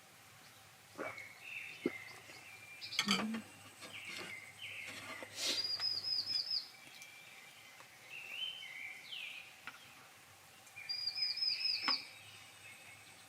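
Wild birds calling and singing in woodland: scattered short chirps, and twice a quick run of about five looping high notes. A few sharp clicks about three seconds in.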